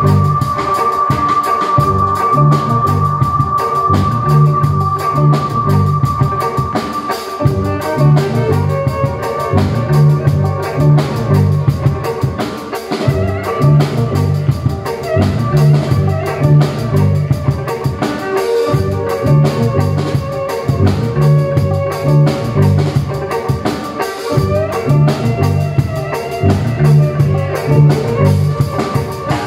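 A drum kit and an amplified violin playing together live, with a steady beat and a repeating low pulse throughout. A long high note is held over the first several seconds.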